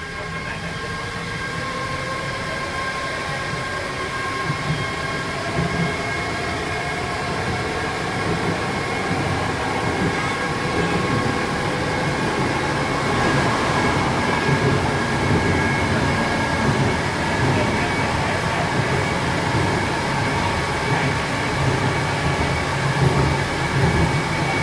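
Ganz-Mávag M1 metro car pulling out and running through the tunnel, heard from inside the car: a motor whine rising in pitch over the first several seconds as it gathers speed, over a steady rumble of wheels on rail.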